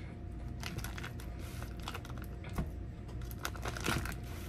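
A person chewing a mouthful of food close to the microphone: small irregular wet clicks and smacks, with two louder ones, over a low steady hum.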